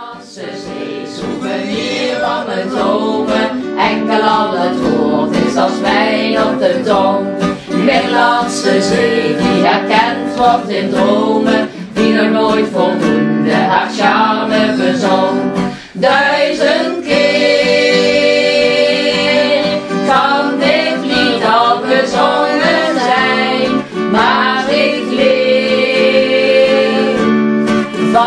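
Singing to a strummed acoustic guitar, a live folk-style song that fades in at the start.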